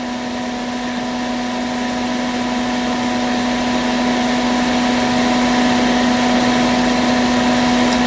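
Portable electric space heater running on heat at just under 900 watts: its fan blows with a steady electrical hum. The sound grows slowly louder.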